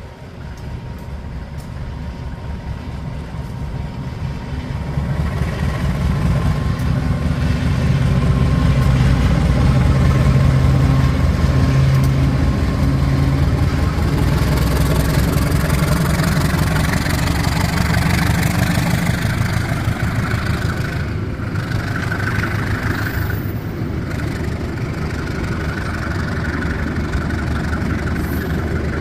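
A passenger train's diesel locomotive approaches and passes, its engine growing louder over the first several seconds. Then comes a steady rumble of the coaches rolling by on the rails.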